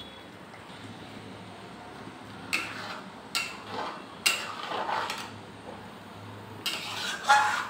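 Metal spatula knocking and scraping against a steel kadai while stirring thick masala gravy: a handful of short metallic clanks and scrapes starting about two and a half seconds in, the loudest near the end.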